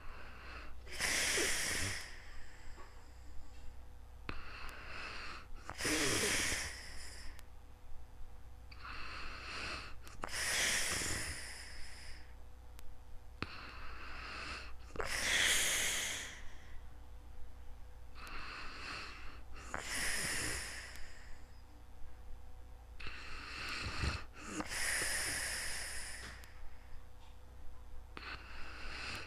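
A sleeping person breathing heavily and slowly, about six breaths, roughly one every five seconds. Each breath is a shorter, softer rush of air followed by a longer, louder, wheezy one.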